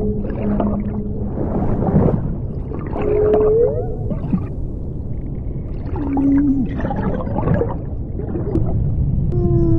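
Ambient performance soundscape: long held low tones that slide up and down in pitch, over repeated bursts of crackling noise.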